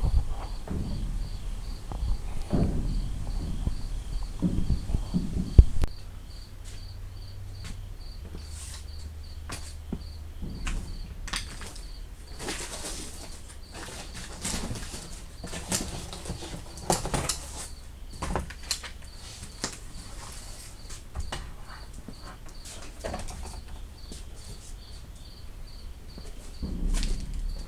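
Sheets of cardboard being rummaged, rustled and cut, with a sharp knock about five seconds in and a run of scratchy rustling and scraping in the middle. Crickets chirp steadily and faintly behind it.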